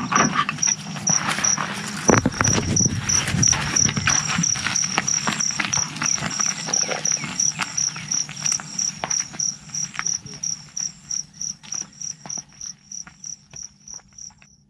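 A plastic spoon clinks and scrapes against a steel pot and plastic cups as food is ladled out, loudest about two seconds in. Behind it an insect chirps steadily in even pulses, about four a second.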